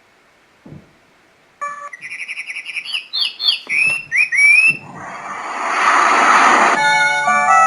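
A sunrise alarm clock's small speaker plays its recorded nature sounds as the track selection is stepped through. A faint button click comes first, then birdsong chirps start about one and a half seconds in, a rising rush of noise follows, and a plucked-string melody begins near the end.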